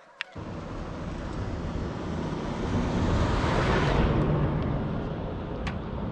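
A truck moving off along a sandy dirt road: engine rumble with tyre and wind noise starts suddenly just after a click, builds over the first few seconds, then holds steady.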